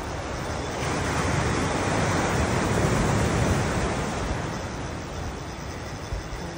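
Ocean surf washing onto a rocky shoreline: a rush of water that swells about a second in, holds for a couple of seconds, then dies away.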